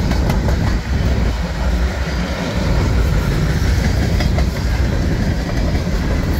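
Covered hopper cars of a freight grain train rolling past: a loud, steady low rumble with wheels clicking over the rail joints.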